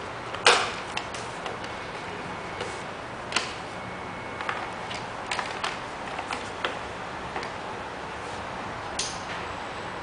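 Clicks and light taps of a robot vacuum's plastic body and mop-cloth attachment being handled, pressed on and turned over: one sharp click about half a second in, the loudest, then scattered lighter clicks and another knock near the end.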